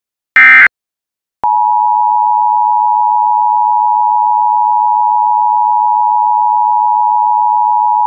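Emergency Alert System signal: the last short data burst of the SAME header just at the start, then, after about a second of silence, the steady two-tone EAS attention signal sounding without a break through the rest.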